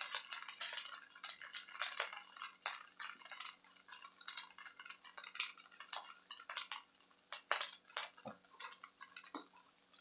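A wooden spoon scraping and tapping in a nonstick wok as fried rice is stirred and turned, giving light, irregular scrapes and knocks.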